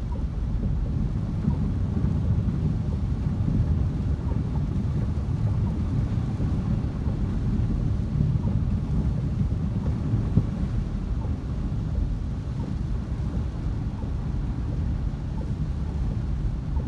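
Steady low rumble inside a moving car's cabin as it drives through standing floodwater in rain, from the tyres running through water and the engine.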